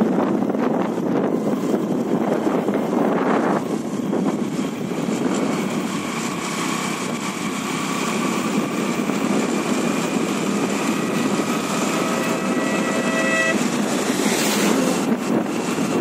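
Wind rushing over the microphone and road noise from a moving vehicle, steady throughout. About three-quarters of the way through, a short steady pitched tone sounds over it for a second or so.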